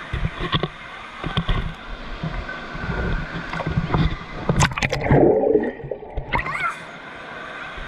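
Water sloshing and splashing close to the microphone, with knocks and rumble, loudest and briefly muffled about five seconds in.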